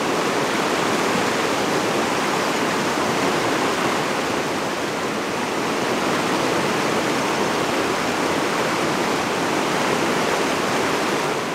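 Steady rush of a fast mountain river running over rocks and rapids.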